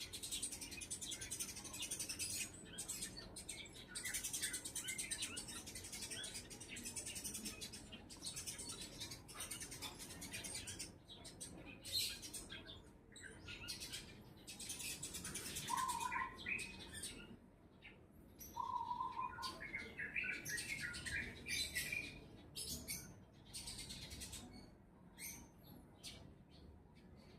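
Wild birds chirping and calling in a dense chorus that comes and goes in stretches, with two short, clear whistled notes about sixteen and nineteen seconds in.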